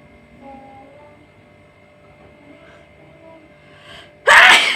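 A woman sneezing once, a sudden loud burst lasting about half a second near the end, set off by a rolled strip of paper tickling inside her nose. Before it, faint humming.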